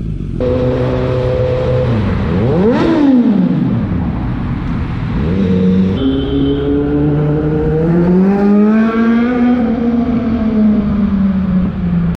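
Kawasaki Z900 inline-four engine and exhaust: a quick rev that rises and falls sharply about three seconds in, then the engine pulling up through the revs in long, gradual climbs while riding.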